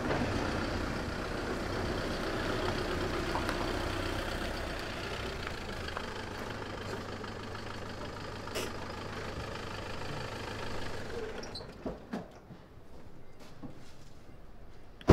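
Peugeot 206 car engine idling with a steady low hum, which stops about eleven seconds in; a car door slams at the very end.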